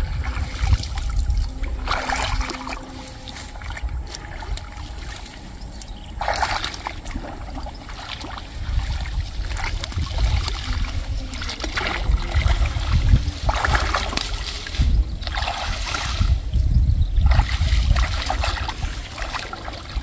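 Muddy water splashing and sloshing as someone wades knee-deep and hauls up tangled waterweed, in irregular bursts every few seconds.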